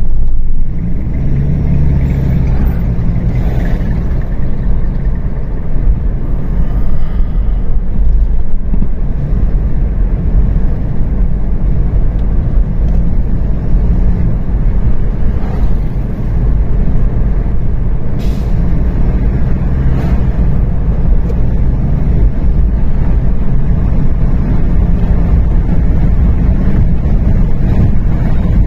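Car driving along a wet highway, heard from inside the cabin: a steady, loud low rumble of engine and tyres.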